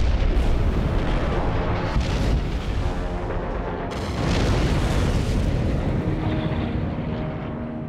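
Heavy explosion booms and deep rumbling over background music with sustained notes. One blast hits right at the start and another swells about four seconds in, as bombs strike ships.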